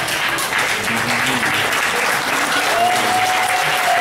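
Congregation applauding, many hands clapping steadily; a steady held tone comes in near the end.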